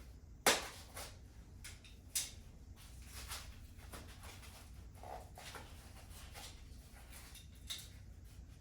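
Handling noises from unboxing or setting up a road bike: a few sharp clicks and knocks, the loudest about half a second in, with lighter ones scattered after.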